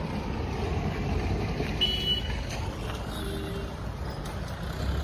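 Steady low rumble of road traffic, trucks among it, with a short high-pitched beep about two seconds in.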